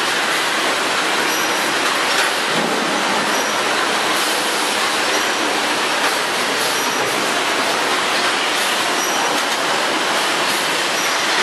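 Automatic detergent-powder packaging line running: a steady, even mechanical noise from the bagging machine and its conveyors, with no distinct strokes or pauses.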